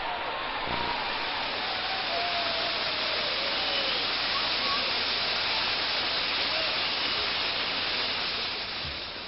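Large crowd applauding and cheering, a steady wash of clapping with a few shouts, starting to fade near the end.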